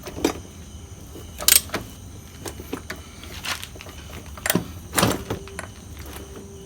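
Metal tools clicking and clanking against a Yamaha RXZ two-stroke engine as its crankshaft nut is tightened: a handful of separate sharp knocks, the loudest about a second and a half in and again around five seconds.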